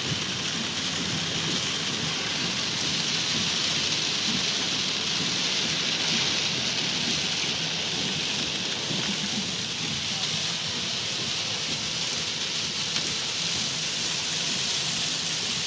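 Heavy rain pouring down in a steady, dense hiss, with no let-up.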